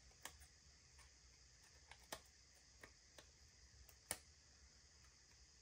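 Near silence with about six faint, scattered clicks, the loudest about four seconds in, from slowly cutting an extra edge off a paper sticker.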